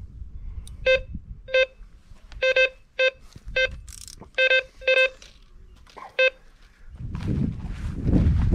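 Electronic carp bite alarm beeping in irregular single and double beeps, about eleven in all, as a fish pulls line off the rod: a run. A steady low rumble sets in near the end.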